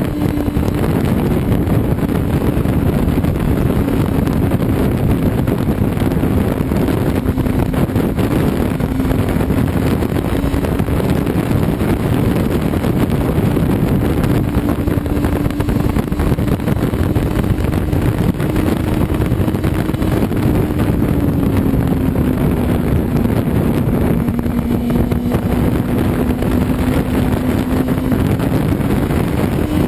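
Sport motorcycle engine running at a steady cruise under heavy wind rush on the microphone. The engine note eases down about two-thirds of the way through and rises again near the end.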